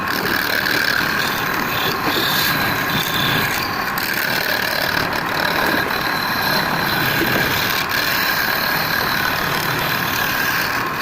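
Woodturning lathe running steadily, a constant machine noise with a steady whine, which starts abruptly.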